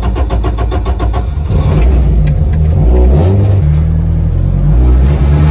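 Turbocharged Toyota 3S-GE BEAMS four-cylinder in an AE86, just started and running, pulsing unevenly at first, then settling as the revs rise and fall a couple of times.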